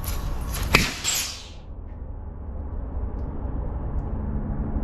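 Compressed air blasting out of a pressurized air hose as the fitting is pulled off without draining the line first: a loud hiss with a sharp pop about three quarters of a second in, dying away by about a second and a half. A low steady hum continues underneath.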